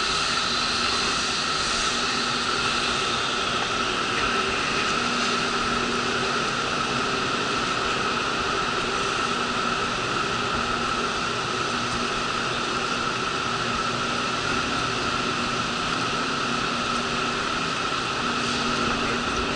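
Diesel railcar standing at the platform with its engine idling: a steady hum with a constant high whine over it.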